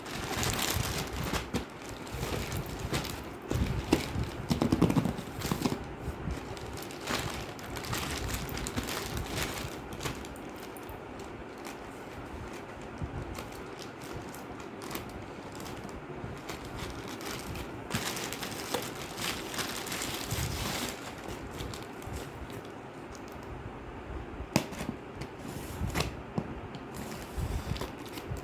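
Cosmetic packaging being handled and opened: irregular crinkling and rustling with scattered clicks and taps.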